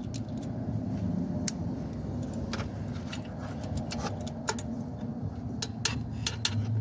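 Wrench tightening an alternator mounting bolt: irregular metallic clicks and clinks of the tool on the bolt, over a steady low hum.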